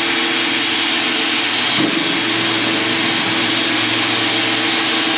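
Small electric motor of a power tool running steadily at one speed, cutting off just after the end.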